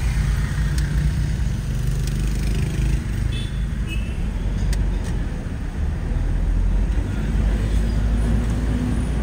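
Car driving along a wet street, heard from inside the cabin: a steady low rumble of engine and tyre noise, with a couple of faint ticks.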